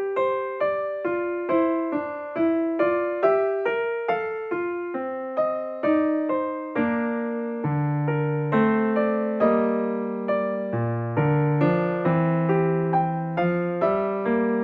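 Background music: a gentle piano melody of evenly paced notes, about two or three a second, with fuller chords joining in the second half.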